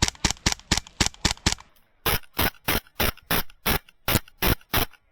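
Airsoft gun firing rapid single shots as sharp clicks, about five a second at first. After a brief gap, about two seconds in, the shots come about three a second and sound crisper, with no background between them.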